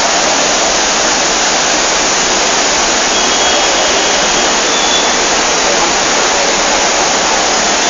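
Floodwater rushing in a swollen mountain river in flash flood, a loud, steady rush of water.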